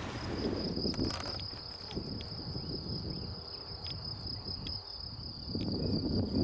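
A steady, high-pitched insect trill, like crickets, over low wind rumble on the microphone that gets louder near the end.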